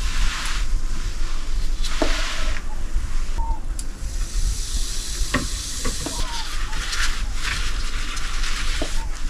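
Hissing and crackling over a steady low rumble, coming in surges. A few light metal clicks fall around the middle as pliers handle steel knife scales lifted from a copper-plating bath, and a paper towel rustles near the end as the scales are wiped.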